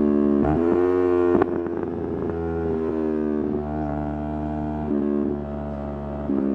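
Yamaha R3's 321 cc parallel-twin engine running while riding, the revs mostly held steady. The pitch rises quickly about half a second in, then a sharp crack and a drop in pitch come about a second and a half in. The revs step up and down a few more times after that.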